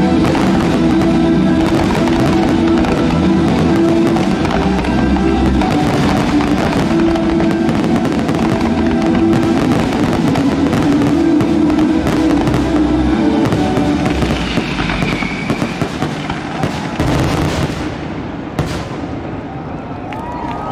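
Fireworks closing barrage: a dense stream of rapid bangs and crackling over loud music with held chords. The bursts thin out and the level drops near the end.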